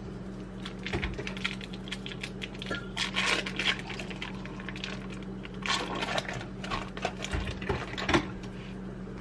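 Foil wrapper of a cream cheese block crinkling and rustling as it is peeled open by hand, with a couple of soft thumps near the end as the block is pushed into a plastic bowl.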